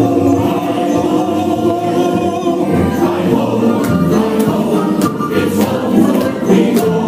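The coaster's show soundtrack: music with a group of voices singing. Several sharp clicks come in during the second half.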